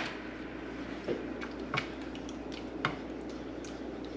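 Cheese sauce being stirred in a pan as shredded pepper jack melts into it: a soft, wet stirring with a few faint clicks of the utensil against the pan.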